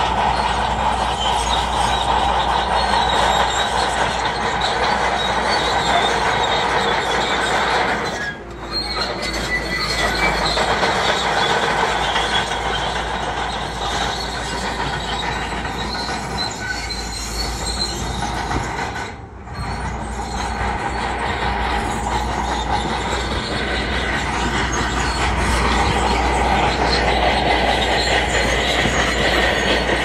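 Heavy earthmoving machinery working: a diesel engine running loud and steady, with a metallic squeal of several steady high tones over the clatter. The sound drops off briefly twice.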